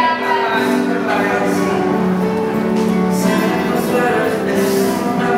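Background music: a song with long held notes.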